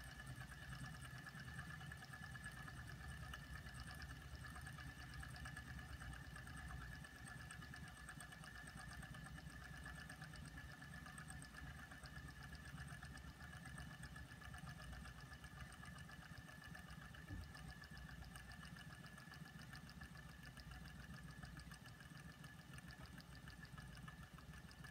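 Two small Wiggers-type flame-eater (vacuum) engines, Bengs Modellbau Laura models with glass pistons in glass cylinders, running together. They make a faint, fast, even ticking with a light mechanical hum.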